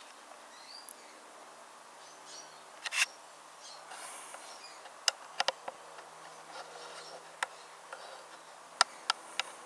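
Faint steady low buzzing hum, broken by a handful of short sharp clicks: one louder click about three seconds in, a quick cluster around five seconds, and a few more near the end.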